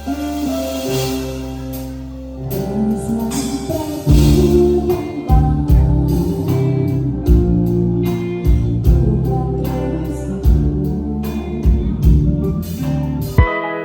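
Live band playing during a sound check, with bass, guitar and keyboard, and a woman singing. The drums come in about four seconds in, and the music cuts off abruptly just before the end.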